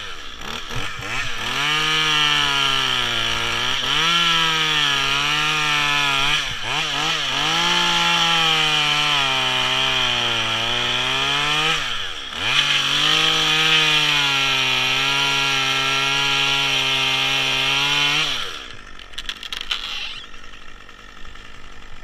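Top-handle two-stroke chainsaw cutting into eucalyptus wood at high revs, its pitch sagging and recovering under load as the chain bites. It drops off briefly twice, about six and twelve seconds in. Near the end it comes off the throttle and falls back to a quieter idle.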